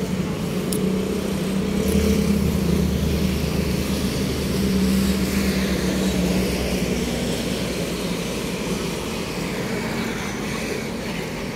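A steady engine drone with a low hum, louder about two seconds in and slowly fading toward the end.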